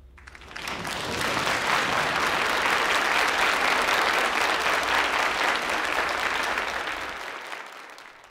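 Large audience applauding, swelling up over about a second, holding steady, then fading away near the end.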